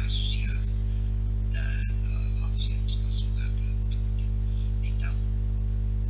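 Steady electrical mains hum, a low buzzing drone that does not change, with faint short high-pitched ticks scattered over it.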